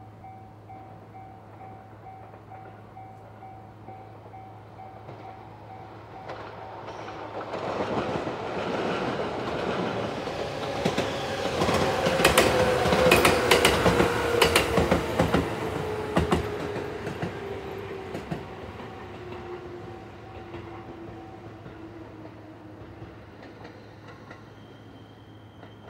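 A JR West 213 series electric train runs by slowly and brakes into a station. Its rail-joint clatter is loudest around the middle, and a whine falls slowly in pitch as it slows. Under it a level-crossing alarm rings with a repeating tone.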